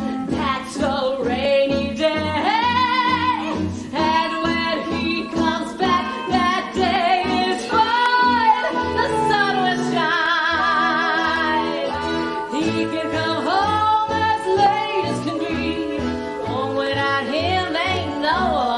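Women singing a show tune in a wide vibrato over a theatre orchestra with a steady bouncing beat.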